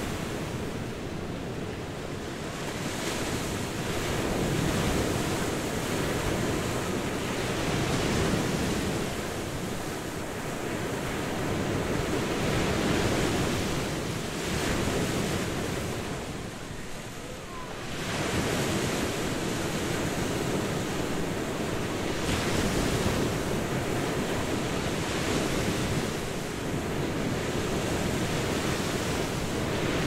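Sea waves breaking and washing up on a beach, the surf swelling and easing every few seconds, with a short lull about two-thirds of the way through.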